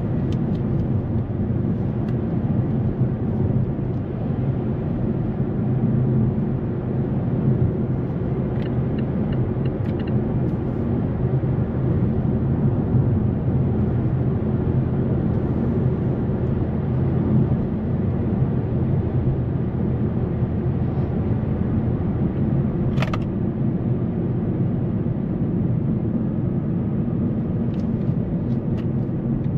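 Steady in-cabin running sound of a 2008 Mazda 3's 2.0-litre four-cylinder petrol engine with tyre and road noise while driving at a fairly constant speed. One sharp click about three-quarters of the way through.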